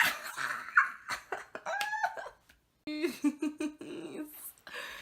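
A young woman laughing and squealing with excitement: breathy bursts, a short high squeal, then a run of choppy laughs.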